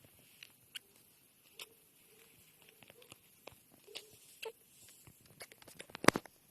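Baby squirrel's laboured breathing: short squeaks, like a squeaky toy, at irregular intervals, coming closer together near the end, with one loud sharp sound about six seconds in. The squeaking is the sign of raspberry aspirated into his airway.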